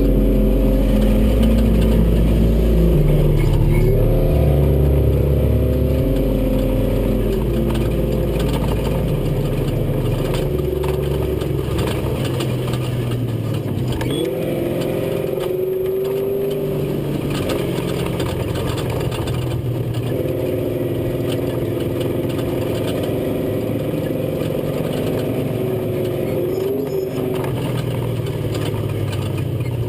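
Off-road race truck's engine heard on board, running steadily and climbing in revs several times, with rattles through the cab. Bass-heavy music fades out over roughly the first ten seconds.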